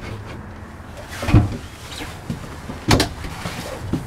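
Wooden cabinet or closet doors in a motorhome being handled, with two knocks about a second and a half apart, over a low steady hum.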